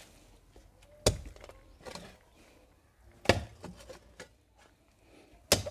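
A phawda, an Indian digging hoe, chopping into the earth: three sharp strikes about two seconds apart, each followed by smaller knocks and rustles of loosened soil.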